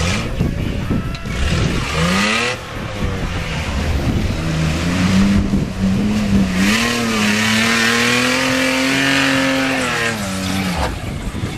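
4x4 SUV engine revving hard as the truck powers through a mud hole, with mud and water splashing from the tyres. The revs rise briefly about two seconds in, then climb and hold high for several seconds before dropping near the end.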